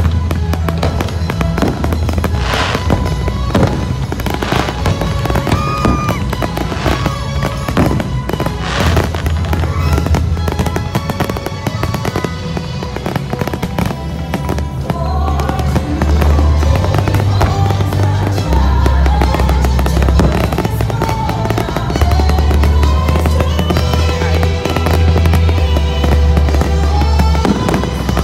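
Fireworks display set to loud show music with a heavy bass line. Fireworks go off several times, with the sharpest bursts in the first nine seconds.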